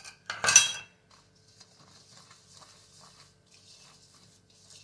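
A loud metallic clink against a steel bowl about half a second in, ringing briefly, then a hand rubbing and mixing a spice paste in the bowl with a faint, scratchy swishing.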